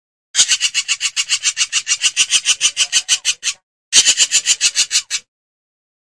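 A hornbill calling in a rapid series of pulsed notes, about eight a second, for about three seconds. A second, shorter run follows about half a second later.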